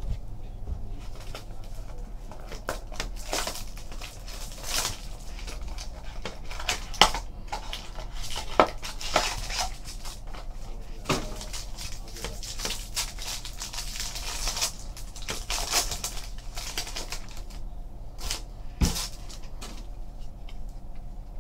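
Trading cards and their packaging being handled: irregular clicks, taps, slides and short crinkling rustles, with a couple of sharper taps.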